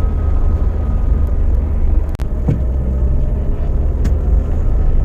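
Car driving, heard from inside the cabin: a steady low road and engine rumble. Just after two seconds in there is a brief dip and a couple of clicks, then a faint engine tone comes up.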